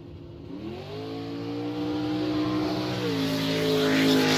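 An engine revving: its pitch climbs about half a second in, then holds steady, shifts once just after three seconds, and a hiss builds near the end.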